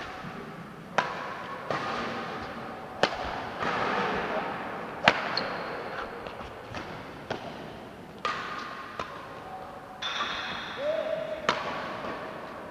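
Badminton rackets striking a shuttlecock during a rally, sharp smacks every one to two seconds, the loudest about five seconds in. Voices and chatter from the hall run underneath.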